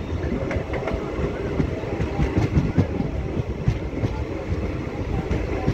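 Passenger train running on the rails, heard from an open door of a moving coach: a steady rumble with irregular clacks and knocks from the wheels.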